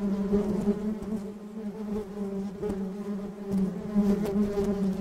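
Honeybees buzzing around a freshly cut wild honeycomb: a steady hum that swells and fades as the bees fly close and away.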